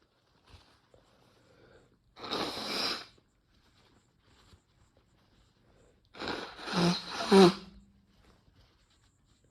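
A man sneezing, brought on by Chhinkni herbal sneezing powder. A short noisy rush of breath comes about two seconds in. Then a louder, voiced sneeze comes about six seconds in and lasts a second and a half.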